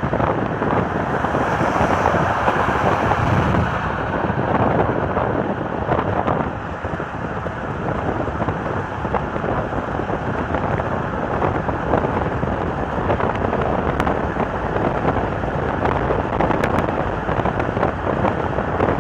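Steady rumble of a moving vehicle with wind buffeting the microphone.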